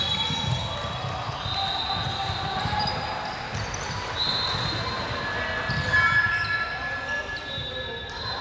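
Basketball game sounds on a hardwood court: a ball bouncing, several short high sneaker squeaks, and players' voices calling out.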